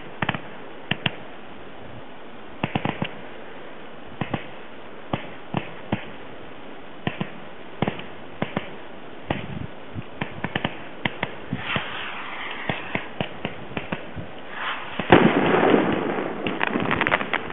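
Fireworks going off: sharp, separate bangs and pops, scattered at first and coming more often as it goes on. About fifteen seconds in, a louder, dense run of crackles sets in.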